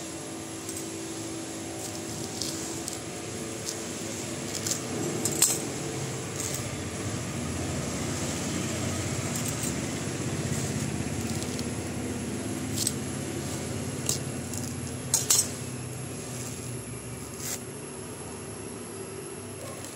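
Coconut husk being stripped by hand and with a large steel knife: coir fibres rustling and tearing, with a few sharp clicks and taps, two close together about 15 seconds in.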